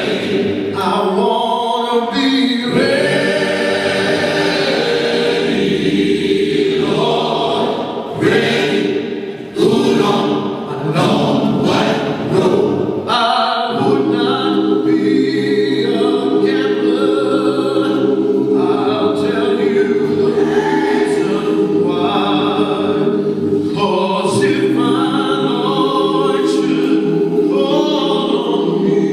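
Recorded choir singing, played back over a loudspeaker as dance music. The singing moves in long held chords, with a busier, choppier passage about a third of the way in.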